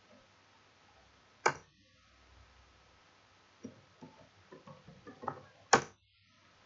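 Computer keyboard keystrokes: a single sharp key press, then a quick run of about ten key taps as a password is typed, ending in a louder, harder press of the Enter key.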